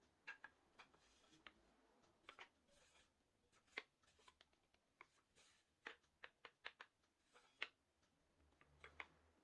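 Faint, irregular clicks and taps of wood pieces and small tools being handled, with a few sharper knocks about four and seven and a half seconds in.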